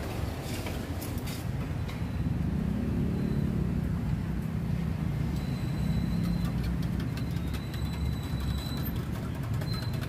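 Steady rumble of road traffic passing close by, swelling and easing as vehicles go past, with faint light ticking in the second half.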